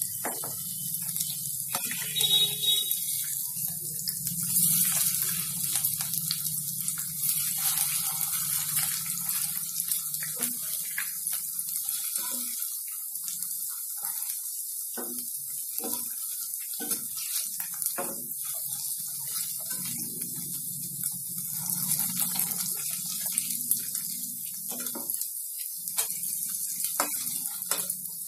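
Sabudana pakoras deep-frying in hot oil, a steady sizzle, with a slotted steel spatula knocking and scraping against the pan now and then as they are turned. A low hum runs underneath for much of it.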